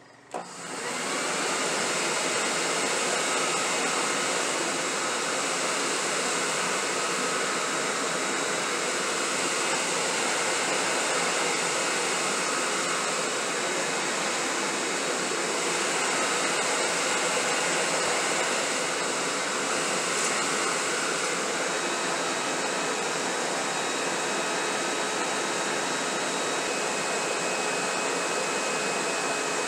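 Electric leaf blower switched on and quickly spinning up to a steady rush of air with faint whining tones, blasting air into a forge fire to bring it up to heat.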